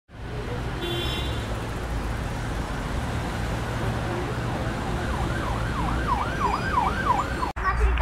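A siren wailing in quick up-and-down sweeps, about three a second, starting about five seconds in and cutting off suddenly near the end, over a steady low rumble.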